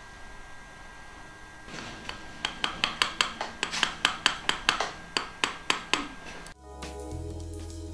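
A quick run of sharp metallic taps and clicks from steel dental instruments at the implant site, about four or five a second. Near the end it cuts off and background music with a steady bass line takes over.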